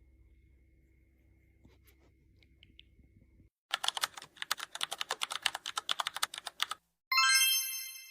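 A rapid run of sharp clicks, about ten a second, for some three seconds, then a bright chime of several tones that rings out and fades.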